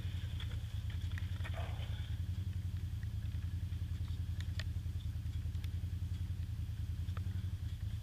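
Quad bike (ATV) engine idling steadily, with a few faint clicks over it.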